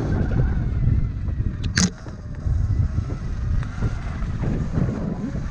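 Sur-Ron electric dirt bike being ridden: a steady rumble of wind buffeting the action-camera microphone and tyres on the trail, with one short, sharp high squeak-like click about two seconds in.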